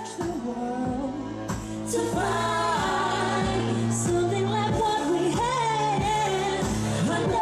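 A woman singing an R&B song live into a microphone, her held notes wavering with vibrato, over a backing track with deep sustained bass and a steady beat.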